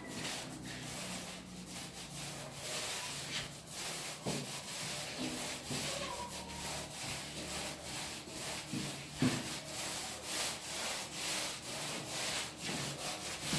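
Paint roller rolling up and down a wall: a steady rubbing with many repeated strokes.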